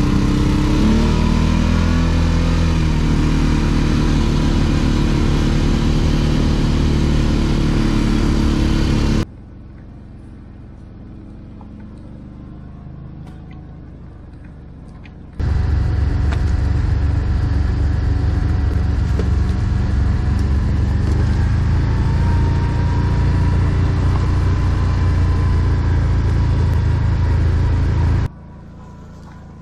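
ATV engine running under way, rising in pitch over the first couple of seconds as it accelerates and then holding steady. It cuts to a much quieter stretch for about six seconds in the middle, then the engine runs loud again until just before the end.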